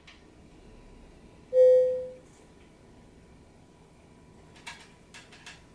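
A single clear chime note, sudden and fading away over about half a second. Near the end come a few light clicks.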